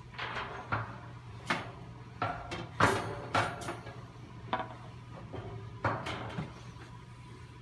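Irregular metal clanks and knocks, about a dozen, the loudest near three seconds in, some ringing briefly: the red metal motor-mount cross bar of a honey extractor being shifted and pressed onto the rim of the stainless-steel drum as it fails to seat. A steady low hum runs underneath.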